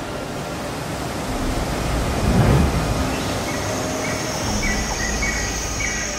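A steady, wind-like rushing noise that swells briefly about two seconds in. Faint short, evenly repeated high tones join it in the second half.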